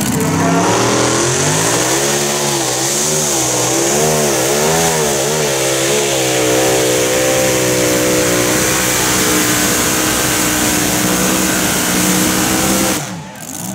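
Supercharged V8 engine of a Mini Unlimited pulling tractor at full throttle during a pull. Its pitch climbs, wavers up and down for a few seconds, then holds steady under a loud roar before dropping away near the end.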